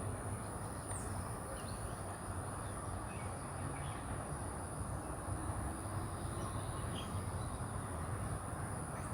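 Steady outdoor background noise with a low rumble, a constant high-pitched tone, and a few faint bird chirps scattered through.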